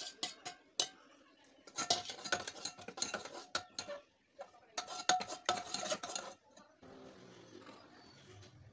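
A steel ladle stirring in an aluminium handi, clinking and scraping against the pot's sides in two quick clattering bursts, after a few sharp clicks of metal on metal as masala is tipped in from a plate. A quieter steady noise takes over near the end.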